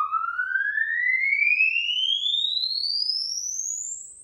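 Sine-sweep test signal played through a loudspeaker: a pure whistling tone rising smoothly and steadily in pitch from high to very high, with faint overtones above it. It is the excitation signal for measuring the room's impulse response and reverberation time.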